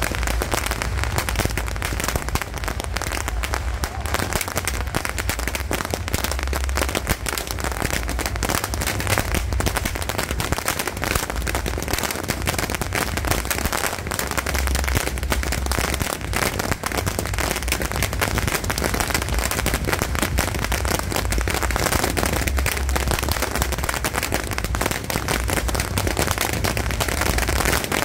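Beehive rocket barrage (fengpao): hundreds of small bottle rockets firing and bursting at once, their bangs and pops merging into one unbroken crackle that does not let up.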